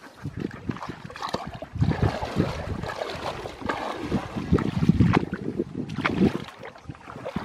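Water splashing and sloshing as a person wades through shallow water on foot, one splashing step after another, louder from about two seconds in.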